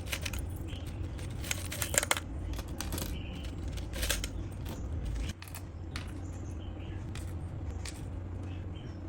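Scattered clicks and light clatter of small hard objects being handled, some in quick clusters, over a steady low hum that drops away about five seconds in.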